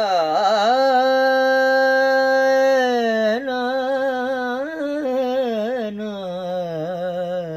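A man singing a Multani kafi unaccompanied, vocalising without words. He opens with bending ornaments, holds one long steady note for about two seconds, then moves through wavering, rising and falling turns.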